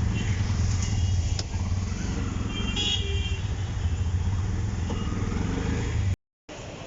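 Steady low rumble of road vehicles with a brief horn toot about three seconds in; the sound cuts off abruptly near the end.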